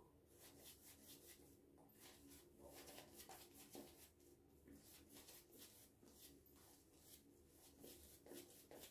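Faint, soft swishing of a synthetic-fibre shaving brush working lather over a stubbled face, a run of many quick strokes.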